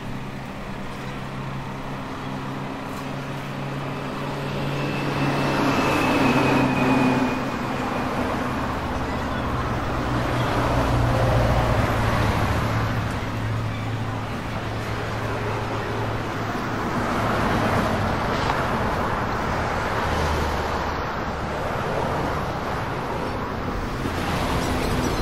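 Busy train-station concourse ambience: a steady low rumble under the noise of a crowd moving about, swelling and easing in loudness.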